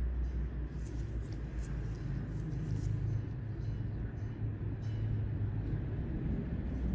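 Steady low background rumble, with a few faint clicks scattered through it.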